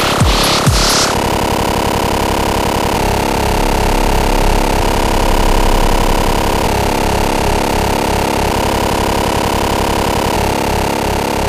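Dubstep track: a few hard kick hits with falling pitch, then about a second in a dense, buzzing synth bass that changes its pattern every two seconds or so, without drums.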